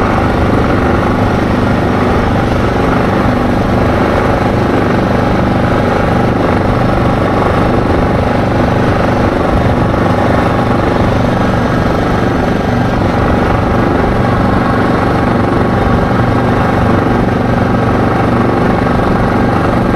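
ATV engine running steadily at cruising speed, its pitch and loudness holding even throughout.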